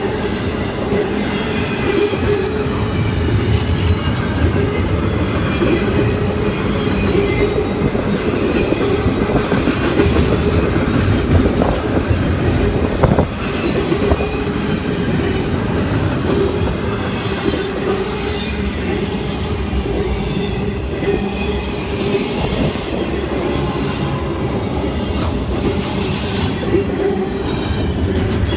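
CSX double-stack intermodal freight train passing close by: a continuous rumble and clatter of steel wheels on the rails, with a steady ringing tone running through it. One sharper knock comes a little under halfway through.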